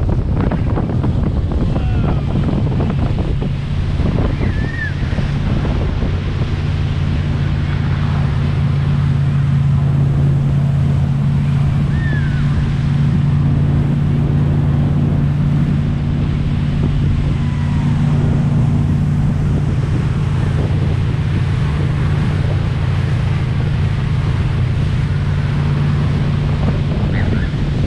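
Motorboat engine running at a steady speed with a constant hum, over rushing water and wind buffeting the microphone.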